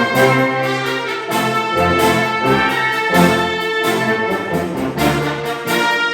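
Orchestral music with prominent brass, playing as the accompaniment to an artistic whistling performance.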